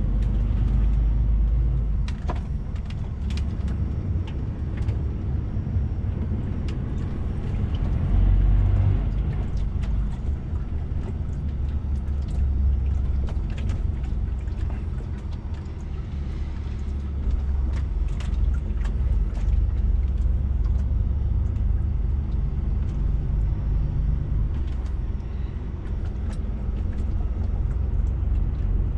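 DAF XF 480 truck's 12.9-litre six-cylinder diesel engine running at low revs, heard from inside the cab as the truck creeps along at walking pace. There are occasional light clicks and rattles over the steady rumble.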